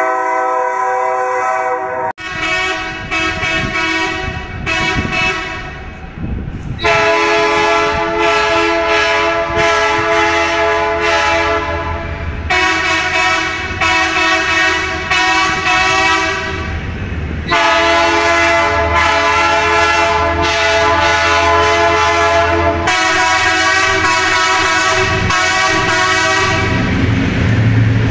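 Electric train horn sounded in a series of long blasts, each held for several seconds, echoing under the station roof. Near the end a low, steady motor hum takes over as the train draws alongside the platform.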